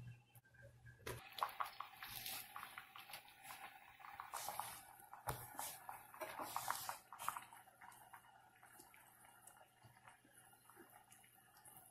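Faint liquid sloshing and light clicks as a ladle moves through a pot of beef soup, dying away after about seven seconds.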